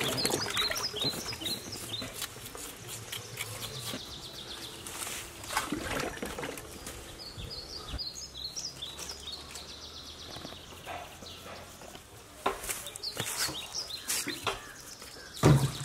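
Small birds chirping in short calls, over intermittent scraping and clicking as knives peel yam skins over a basin of water. A loud thump comes near the end.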